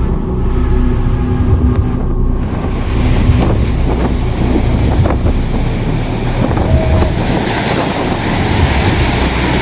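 Storm wind buffeting the microphone over a steady rush of surf, with a low rumble underneath; the hiss grows broader and louder about two seconds in.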